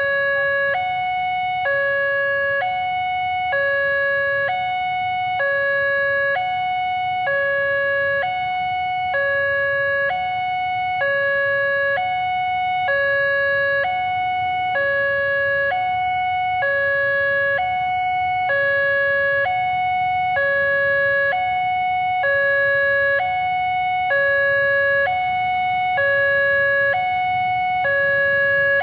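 Electronic two-tone warning siren of a railway level crossing, alternating steadily between a lower and a higher tone about once a second each, the signal that a train is approaching and the barriers are closed.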